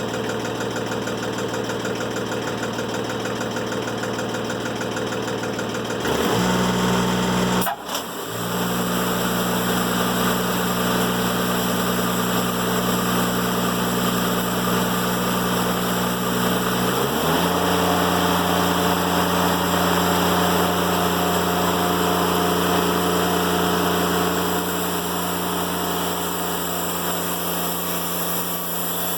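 Timberking 1400 bandsaw mill's engine running at low speed, then throttled up about six seconds in, with a brief sharp drop a moment later. Its tone shifts again about halfway through as the mill saws a black locust log, and it eases off slightly near the end.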